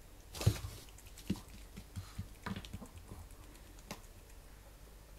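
A handful of light, irregular knocks and taps, the loudest about half a second in and a sharp click near four seconds.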